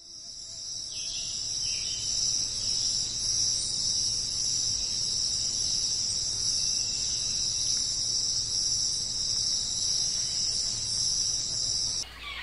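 A dense, steady, high-pitched insect chorus. It fades in over the first couple of seconds and cuts off abruptly near the end.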